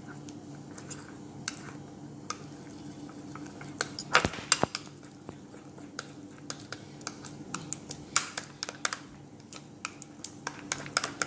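Steel spoon stirring and scraping cocoa powder and milk into cake batter in a glass bowl, with irregular clinks of the spoon against the glass. The loudest clinks come about four seconds in.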